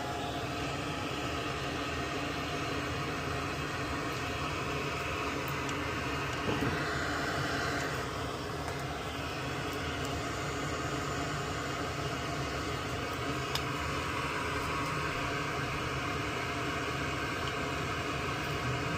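Steady mechanical hum and hiss, like a fan running, with a few faint small clicks.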